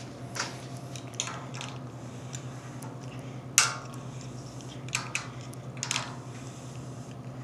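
Scattered light knocks and clicks, the sharpest about three and a half seconds in, over a steady low hum.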